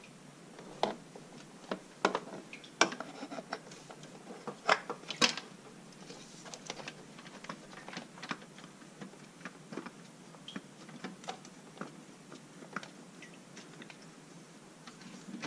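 Irregular clicks and small metallic knocks as a spin-on oil filter is threaded on by hand onto the KA24DE engine. A handful of sharper knocks fall in the first five seconds, followed by lighter scattered ticking.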